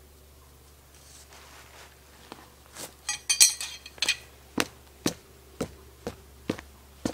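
A handful of metal tent stakes clinking together. A jumble of clinks comes about three seconds in, then a sharp clink roughly twice a second, in time with walking.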